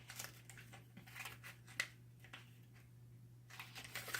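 Faint rustling and light clicks of a folded paper catalog leaflet being handled and opened out, growing busier near the end, over a steady low electrical hum.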